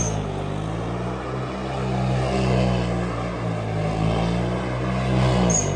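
A vehicle engine held at high, steady revs, the revs dropping near the end.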